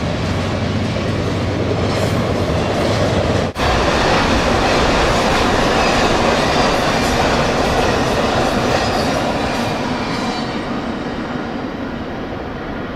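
Double-stack intermodal freight train rolling past: steady rumble and clatter of wheels on rail. It breaks off for a moment about three and a half seconds in, then fades gradually toward the end.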